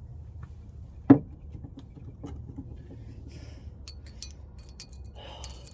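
Heavy steel socket extensions being handled and set down on a work surface: one solid clunk about a second in, then light clicks and metallic clinks, over a steady low hum.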